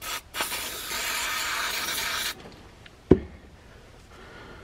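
Aerosol carburettor cleaner sprayed into a Zenith carburettor float chamber: a short squirt, then a steady hiss of about two seconds that cuts off suddenly. A single knock follows about a second later.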